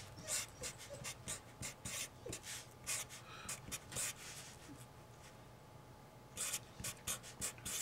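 Marker pen writing on paper: a quick run of short scratchy strokes, with a lull of over a second past the middle before the strokes resume.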